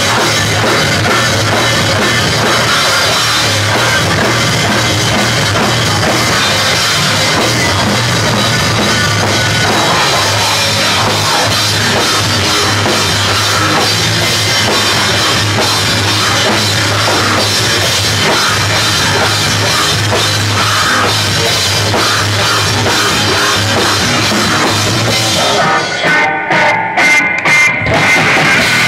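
Hardcore punk band playing live and loud: pounding drum kit and guitars in a dense wall of sound. Near the end the band breaks into a few stop-start hits with short gaps between them.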